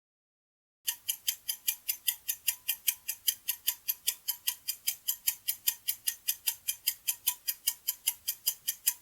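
Clock-like ticking sound effect of a game timer: about a second of silence, then sharp, even ticks at about five a second.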